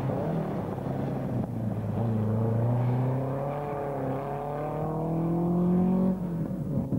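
Ford Escort rally car's engine under hard throttle, the revs climbing steadily with short dips about a second and a half in and again after about four seconds as it shifts gear, then falling away sharply just after six seconds as the driver lifts off.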